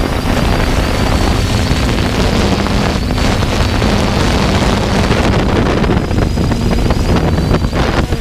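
3DR Iris+ quadcopter in flight, heard from its on-board camera: the electric motors and propellers give a steady high whine and a lower hum under heavy wind buffeting on the microphone.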